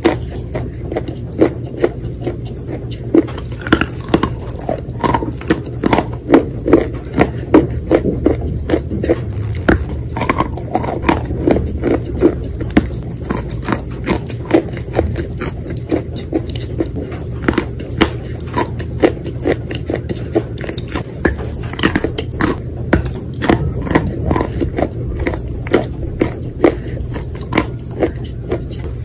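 Close-up crunching of chalk coated in wet clay paste being bitten and chewed: a dense, irregular run of short, crisp crunches with wet chewing between them.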